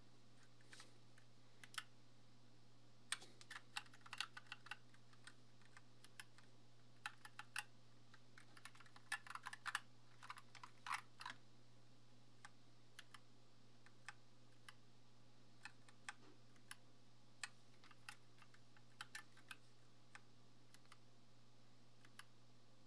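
Keys of a Glorious GMMK 2 mechanical keyboard being pressed: irregular keystroke clacks, coming in quick flurries during the first half and as sparser single presses later. A faint steady low hum lies underneath.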